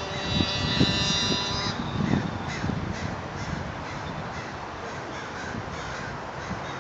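A Go-Ped scooter's small engine whines high and fades away about two seconds in as it moves off. After that, faint short calls repeat over steady outdoor background noise.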